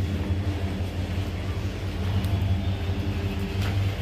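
Goods train of loaded open wagons running through the station: a steady low hum with a rumble over it, and a couple of faint clicks near the end.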